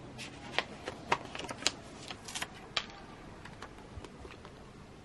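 Paper envelopes and cards being handled and shuffled by hand: a run of crisp rustles and sharp taps, busiest in the first three seconds, then a few faint ones.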